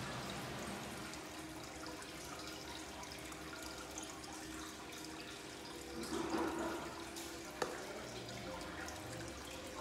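Aquarium water bubbling and trickling steadily from the tank's aerator, with a brief louder surge of water noise about six seconds in and a single sharp click shortly after.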